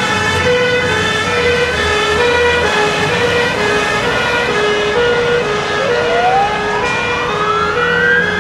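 Two-tone siren of a Scania 94D-220 fire engine sounding its hi-lo alternation, the two pitches swapping about every three quarters of a second, with engine rumble underneath. About six seconds in, a wailing siren starts up and rises steadily in pitch.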